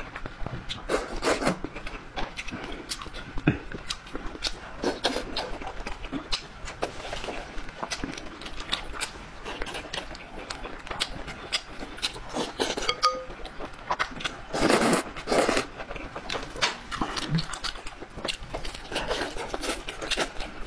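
Close-miked eating: noodles slurped in several loud bursts, the longest about three-quarters of the way through, with wet chewing clicks between them.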